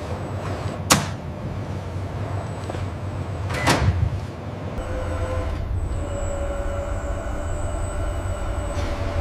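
Steady low hum of factory machinery with two sharp clanks, one about a second in and a louder, ringing one near four seconds; shortly after, the hum settles into a steadier running sound with a faint whine.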